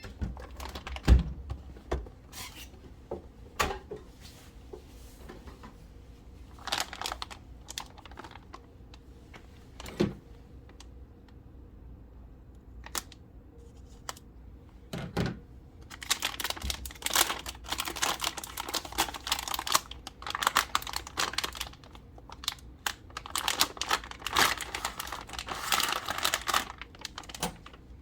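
Handling of a graphics card's cardboard box and packaging: scattered clicks and knocks, then about ten seconds of dense crinkling and rustling from about halfway in, as the card is unwrapped and lifted out.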